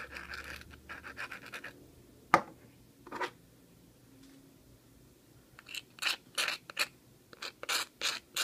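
Crazy glue being worked over the surface of a 3D-printed part: a few light ticks and a sharp click, then a steady run of scratchy back-and-forth rubbing strokes, about three a second, starting near the middle.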